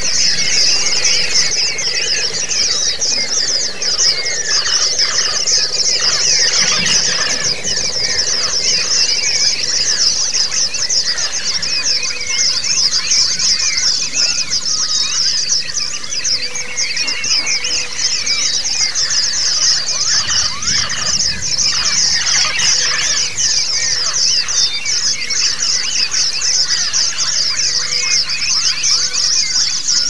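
Pleci (white-eye) song: a fast, unbroken, high-pitched twittering and trilling, dense and rolling, in the 'lasrol' (ngalas and ngerol) style used as a training recording for caged white-eyes.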